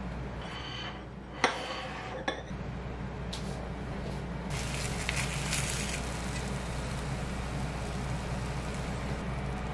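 Kitchenware being handled over a steady low hum: two sharp clicks a little under a second apart, then a couple of seconds of soft hissing around the middle.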